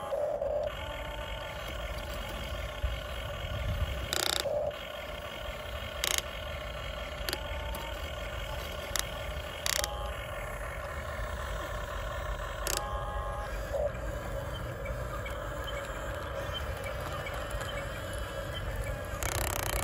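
Electric motors and gearboxes of a Huina RC excavator whining as the boom, arm and bucket move, the whine stopping and starting again with each movement, with a few short sharp clicks.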